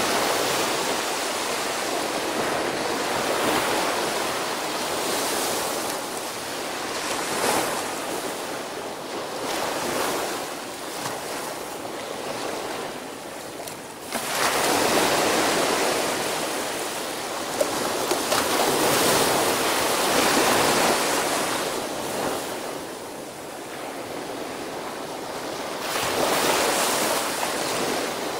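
Small ocean waves breaking and washing up a sandy beach, the surf swelling and easing every few seconds. One wave breaks sharply about halfway through.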